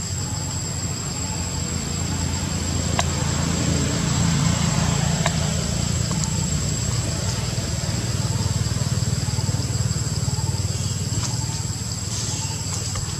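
Steady high-pitched insect drone, like cicadas or crickets, over a low rumble that swells in the middle, with a few faint clicks.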